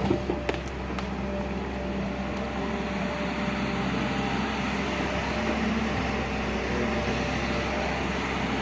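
JCB JS215 excavator's diesel engine running steadily, with a few short knocks in the first half second.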